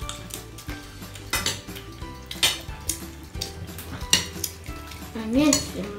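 Scattered sharp clinks and knocks of tableware, plates and a metal pizza pan, at irregular intervals over faint steady background tones, with a short rising-and-falling hum about five seconds in.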